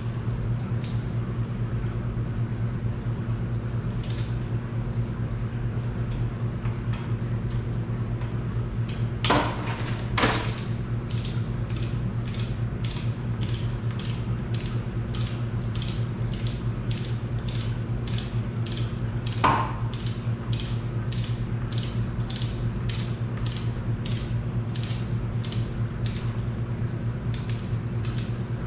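A ratchet wrench clicks in steady strokes as the head nuts on a Farmall Super C engine are tightened down after a head gasket replacement. The clicks come sparsely at first, then at about two a second from a third of the way in, with three louder sharp clicks among them. A steady low hum runs underneath.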